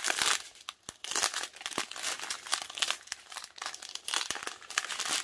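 Small clear plastic zip-lock bags of diamond-painting drills crinkling as they are handled and sorted: an irregular run of crackles and rustles.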